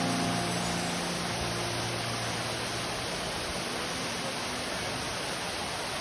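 A steady, even hiss of noise with no distinct events, while the last notes of background music fade out in the first second or two.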